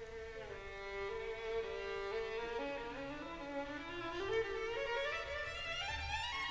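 Background music: a violin playing a slow melody of held notes that steps lower, then climbs steadily higher in the last couple of seconds.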